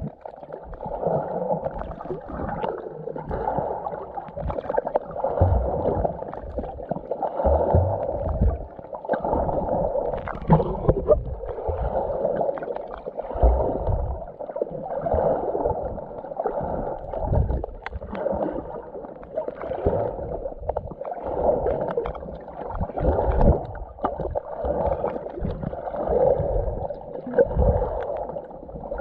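Muffled water sloshing and gurgling around a camera held at or under the sea surface while snorkeling, swelling and fading in surges about every second or two, with dull low thumps.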